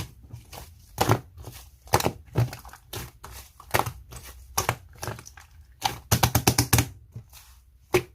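Slime being squeezed and pressed by hand, giving sharp popping clicks about once a second, with a quick run of about eight pops a little after six seconds in.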